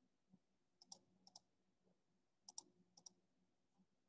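Faint computer mouse clicks: a single click, then four quick pairs of clicks, each pair a button press and release about a tenth of a second apart. The pairs fall around a second in and again around two and a half to three seconds in.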